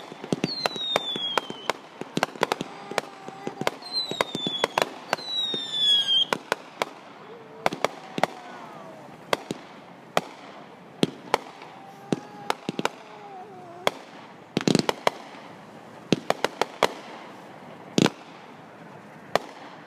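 Backyard consumer fireworks going off: a rapid run of sharp bangs and crackles, with several whistles falling in pitch in the first six seconds. The bangs then come at a slower, scattered pace, with a couple of heavier booms in the second half.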